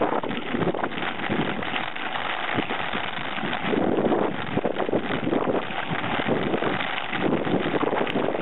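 Mountain bike rolling fast over a rough dirt track: the handlebar-mounted camera picks up a constant clatter of rattles and jolts from the bumps, with wind noise on the microphone.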